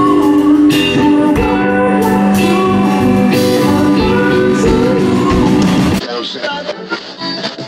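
Live band playing: electric guitar, saxophone and drums with singing. About six seconds in it cuts off abruptly to quieter, irregular background sound.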